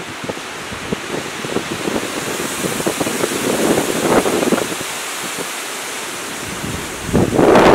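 Strong wind gusting through tall conifers, a rushing noise with wind buffeting the microphone. It swells about two seconds in, and a stronger gust comes in near the end.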